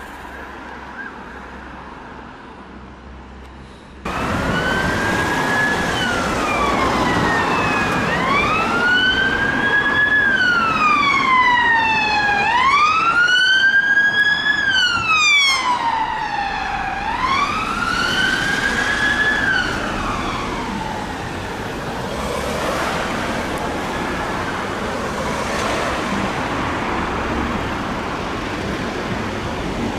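Emergency vehicle siren on a slow wail, its pitch rising and falling about every four to five seconds. It cuts in suddenly about four seconds in and fades into road traffic noise after about twenty seconds.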